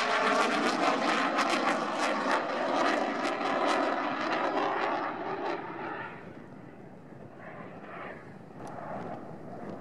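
A Dassault Rafale C fighter's twin M88 turbofan engines at high power, with a rough crackle and tones sliding down in pitch. The noise fades after about six seconds as the jet flies away.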